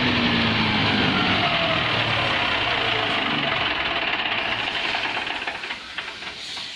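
Komatsu SA6D110 six-cylinder diesel engine of a 130 kVA open-type generator set being shut down: its note drops in pitch and the level falls away over several seconds, ending in a few separate slow beats as the engine coasts to a stop.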